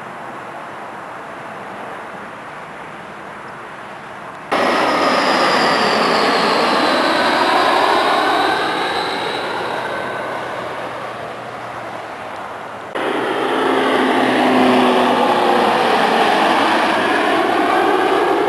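Aircraft noise from an airport perimeter. A faint distant rush gives way abruptly, about four seconds in, to a jet airliner's engines on the runway: a loud rush with a high whine that slowly falls in pitch. Past the middle it cuts to a Beechcraft 1900 turboprop on approach, its engines droning loudly with a few steady low tones.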